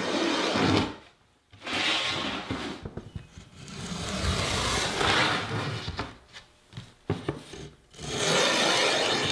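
A marking gauge scraping along the edge of a marine plywood panel as it scribes a line, in four or so long strokes with short pauses between them.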